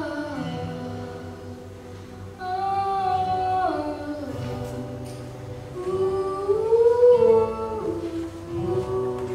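A girl singing a slow song with long held, gliding notes, accompanied by acoustic guitar, in a reverberant church hall.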